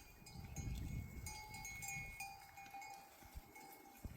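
Bells on a herd of sheep clinking and ringing unevenly as the animals move, quieter in the last second or so.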